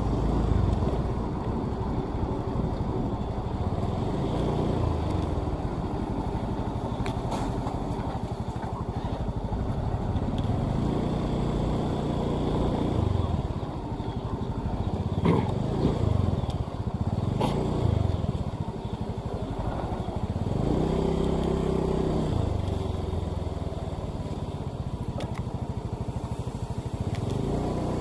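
Motor vehicle engine running on the road with road noise, its pitch rising and falling several times as it speeds up and slows. There are a couple of sharp knocks near the middle.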